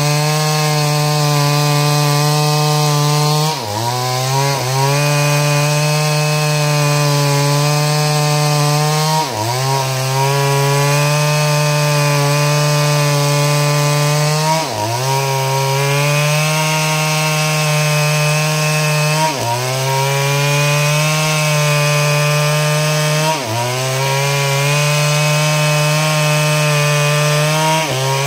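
Two-stroke Stihl chainsaw running at high revs under load, ripping lengthwise through a log to cut planks. Its steady engine note sags briefly in pitch and climbs back about every five seconds.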